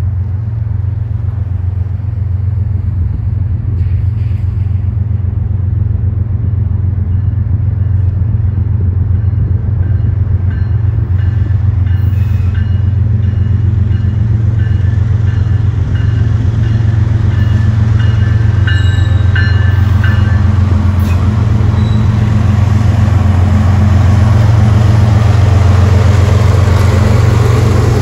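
BNSF GE diesel-electric locomotives, an ES44DC leading a C44-9W, approaching under power with a freight train: a steady low engine rumble that grows louder as they draw near.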